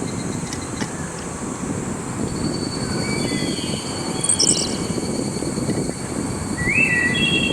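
Park ambience: a steady low rumble under a continuous high insect drone, with a few short bird chirps and calls around the middle and near the end.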